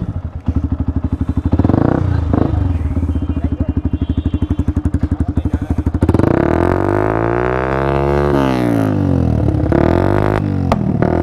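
Yamaha R15S's single-cylinder engine, fitted with an aftermarket fire-shot exhaust, idling with an even pulsing beat. From about six seconds in it is revved up and down, and a sharp bang comes from the exhaust near the end.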